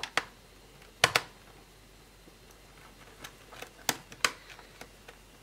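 Sharp plastic clicks and taps from an HP 625 laptop being handled as its disassembly begins. The clicks come singly and in quick pairs, with a short gap after the first two pairs and then a cluster of four or five.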